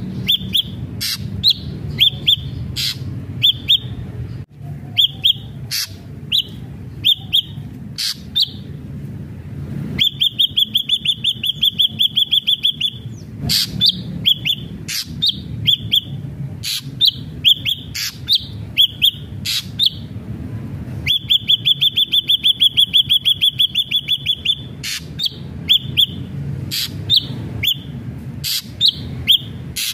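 Ashy drongo singing vigorously: a string of short, clear whistled notes, broken twice by long, rapid trills of a few seconds each. A steady low hum runs underneath.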